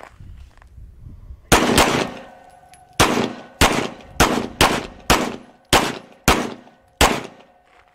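Two pistols fired one-handed, about ten sharp shots in all: the first about a second and a half in, then a quick uneven string roughly half a second apart, ending about a second before the end.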